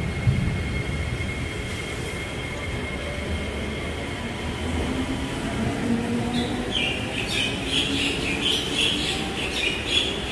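Singapore MRT train running past, with a rumble and a low motor tone that glides in pitch. About six seconds in, a series of short high-pitched bursts starts, repeating a few times a second.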